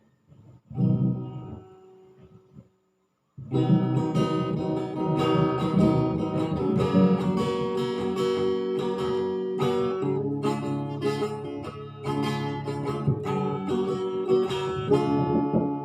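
Acoustic guitar strummed: one chord rings out and fades about a second in, then after a short silence a steady strummed chord pattern plays as the song's introduction.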